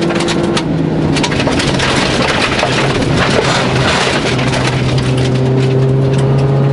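Rally car engine pulling hard on a gravel road, heard from inside the cabin, with gravel and tyre noise under the car. Its note dips briefly about half a second in, then the pitch climbs steadily as the car accelerates.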